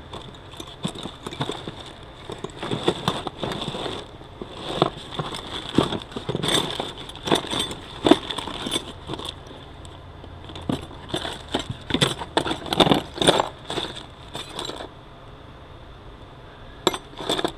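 Small metal transmission parts clinking and rattling as spare bushings are sorted through, many short irregular clicks that die down for the last couple of seconds apart from two more clicks.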